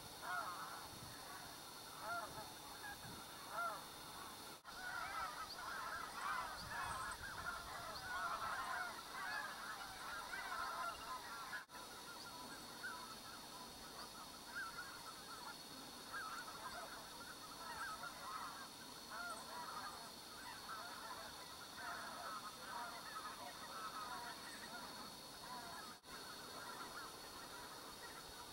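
A flock of wild geese honking in a dense, overlapping chorus of many short calls, with no pause: Middendorff's bean geese (Anser fabalis middendorfi), with greater white-fronted geese among the callers.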